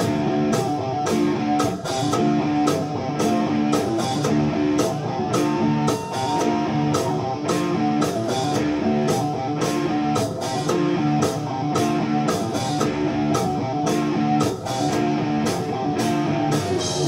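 Stoner rock band playing live: distorted electric guitars riffing over bass and a drum kit keeping a steady beat of about two hits a second, an instrumental stretch with no singing.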